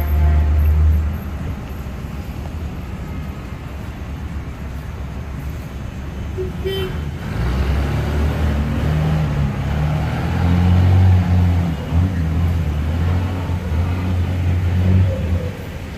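City street traffic passing. A heavy engine rumbles low, loudest in the first second and again from about ten to fifteen seconds in.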